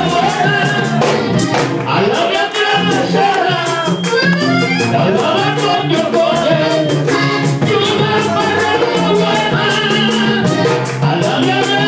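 Salsa-style Latin dance music played loud, with a man singing into a microphone over it and a quick, steady shaker-like percussion rhythm.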